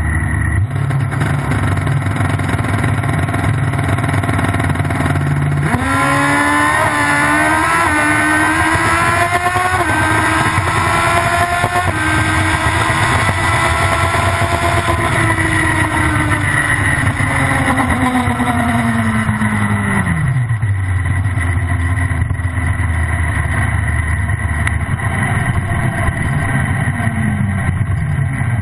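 Drag-racing motorcycle engine heard from on board. It idles at the start line, then launches about six seconds in, its pitch climbing in several quick gear-shift steps. It stays high and slowly winds down as the bike slows, dropping back to a low idle about twenty seconds in.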